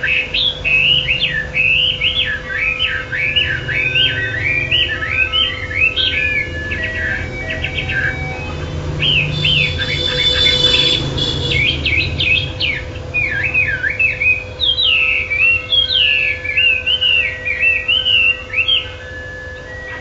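A caged wambi songbird singing nonstop: fast, varied whistled phrases that swoop up and down, with a short change in the song about ten seconds in. A steady low hum runs underneath.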